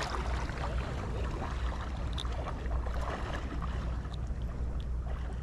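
Steady rush of flowing creek water, with wind rumbling on the microphone and a few faint clicks.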